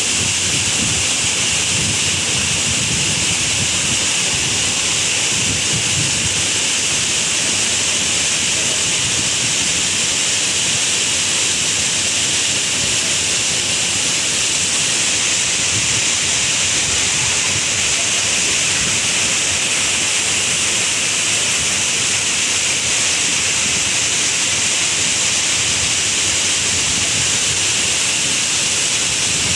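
Waterfall: water cascading down a rocky chute between boulders, a steady, loud rushing hiss that cuts in suddenly at the start.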